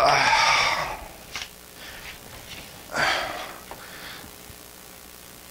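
A man's voice without words: a short strained, wavering groan at the start, then a loud breath or sigh about three seconds in, with faint handling noises between.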